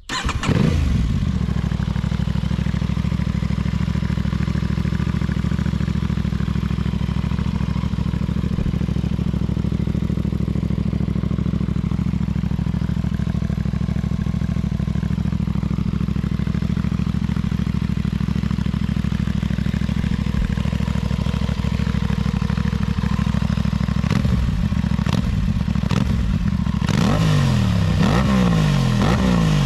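Aprilia 660 parallel-twin motorcycle engine idling steadily through an aftermarket-style exhaust. Then, in the last few seconds, it is blipped several times in quick revs that rise and fall.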